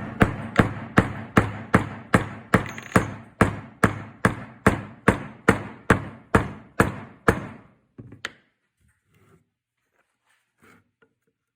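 Hammer striking in a steady rhythm, about twenty even blows at roughly three a second, each with a short ring, stopping about seven seconds in, followed by one last single blow.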